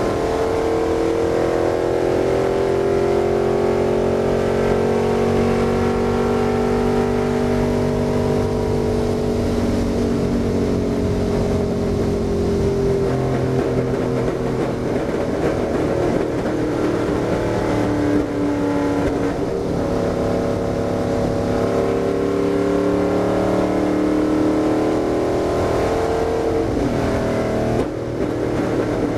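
Stock car's V8 engine running hard at racing speed, heard from inside the cockpit with road and wind noise. The engine note stays steady and loud, eases slightly, then climbs again in the last few seconds.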